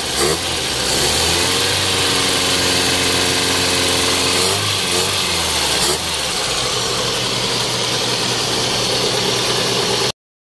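Kia Pride's carbureted four-cylinder engine running at idle under the hood, its revs rising a little and settling back as the throttle linkage is worked. The sound cuts off abruptly near the end.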